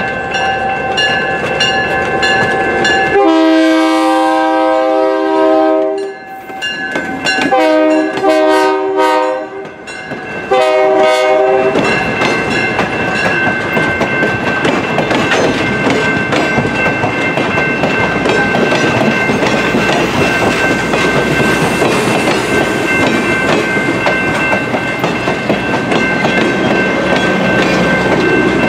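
A train's horn sounds in several blasts, the last one short, then the train rolls on with a steady clickety-clack of wheels over the rails and a thin high ringing tone.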